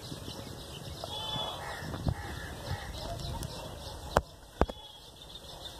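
Outdoor background of faint bird calls over a low rumble, with two sharp clicks close together a little past four seconds in.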